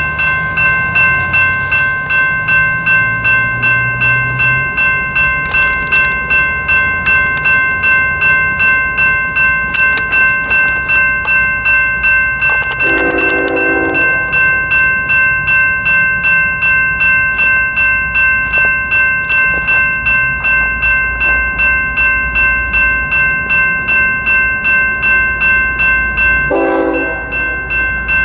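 Railroad grade-crossing bell ringing steadily about twice a second while a train rumbles past. A locomotive horn gives two short blasts, one about halfway through and one near the end.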